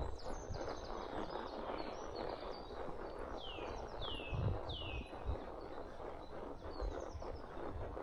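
Songbirds singing: three whistled notes that each fall in pitch come about half a second apart around the middle, with high trills at the start and near the end. Beneath them a horse walks along a trail, with dull hoof thuds and a steady rustle.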